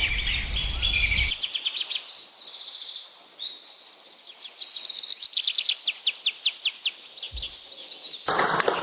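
Bird song: a run of quick high chirps, each sliding down in pitch, that come faster and louder, then change to a series of short level whistled notes near the end.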